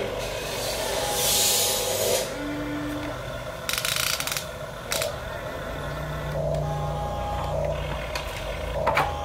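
Huina toy RC excavator's electric gear motors whining in short steady tones that start, stop and change pitch as the boom, arm and bucket move. Bursts of hiss and scraping come from sand as the bucket dumps into the truck and digs back in.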